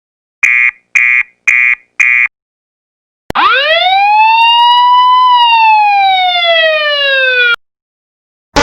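Two alarm sound effects one after the other. First, four short electronic warning beeps at about two a second. Then, after a pause, a single siren wail that rises quickly, swells to a peak and slowly falls before it cuts off.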